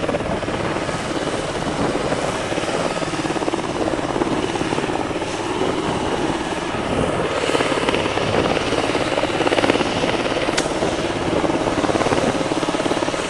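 Eurocopter AS532 Cougar military helicopter flying low close by, its rotor beating rapidly and its turbines running steadily.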